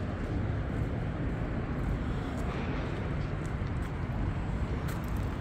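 Steady low rumble of distant road traffic on a city street.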